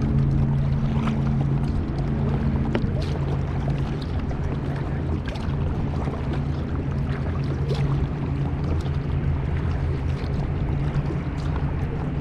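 Boat out on open water: a steady low hum under water and wind noise, with scattered small splashes or knocks.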